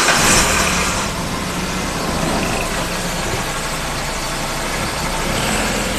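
Car engine running steadily while the drivetrain is tested with a newly replaced inner CV joint. There is no clatter or knocking, a sign that the repair has cured the noise in gear. The sound is a little louder in the first second.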